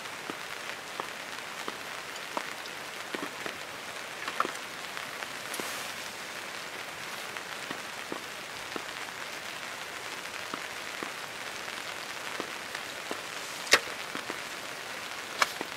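Steady rain falling, with scattered drips ticking throughout and one sharp click near the end.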